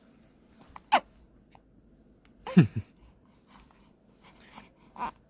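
A newborn baby hiccuping: three short, sharp hiccups a second or two apart, the loudest one about halfway through with a little falling squeak of voice.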